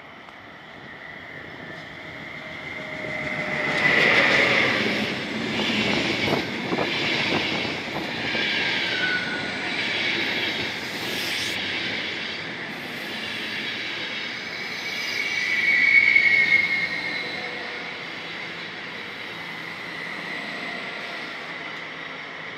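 ÖBB Class 1216 Taurus (Siemens ES64U4) electric locomotive and its Eurocity coaches passing on the station tracks. The rumble of wheels on rail is loudest as the locomotive goes by about four seconds in, then runs on as the coaches roll past. A high squeal from the wheels rides over it and swells again about sixteen seconds in.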